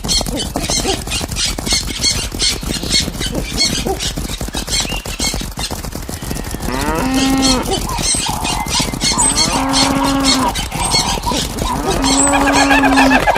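Stampede sound effect: a fast, even beat of galloping hooves, joined from about seven seconds in by cattle mooing, three long moos in all, with short high bird chirps near the end.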